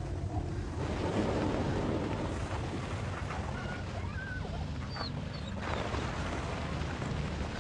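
Steady blizzard wind blowing, a low, even rush, with a few faint short high chirps between about three and five seconds in.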